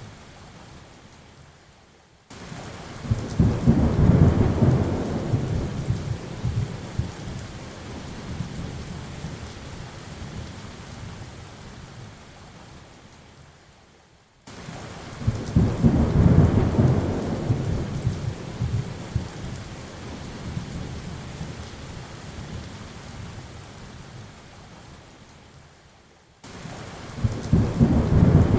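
Thunderstorm: steady rain with rolling thunder. A deep rumble starts suddenly about two seconds in, swells and fades slowly over about ten seconds, and the same pattern comes again twice, about twelve seconds apart, as in a looped recording.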